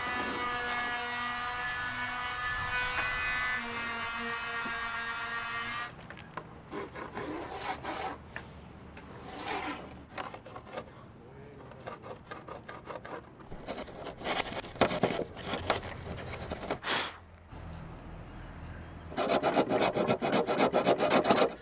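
Hand woodworking on softwood boards: scattered knocks and scrapes as boards are handled and laid on the beam, then a fast run of rasping strokes on the wood edge near the end. The first few seconds hold a steady pitched sound that changes note a few times.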